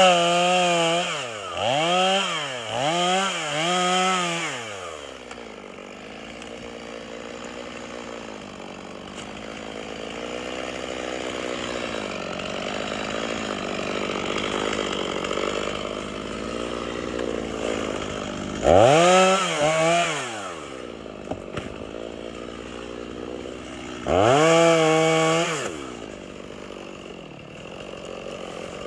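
Chainsaw engine revved in short bursts, four quick ones at the start, then running at a lower steady speed, with two more revs past the middle.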